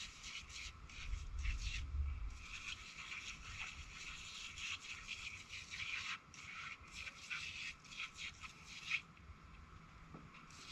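Aerosol foam degreaser spraying onto a greasy backhoe, hissing in short bursts that start and stop every fraction of a second.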